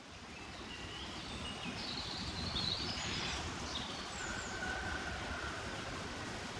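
Outdoor morning ambience fading in: a steady background hiss with small birds chirping and twittering.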